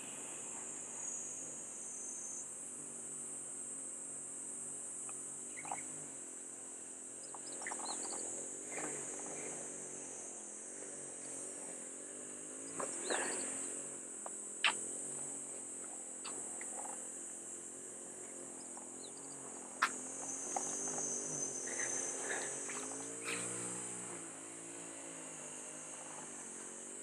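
Steady high-pitched chorus of summer insects, with a faint low drone underneath and a few sharp clicks about halfway through.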